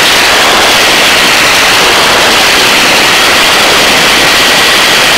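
Helicopter hovering: a loud, steady rushing hiss of rotor and turbine noise with no clear beat, and a faint steady whine in the middle.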